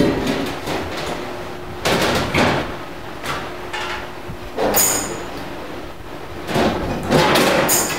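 Press brake bending a sheet of 1/8-inch aluminium: loud metallic clanks and sheet-metal rattles come in four bouts over a faint steady machine hum, with a brief high metallic ring about five seconds in.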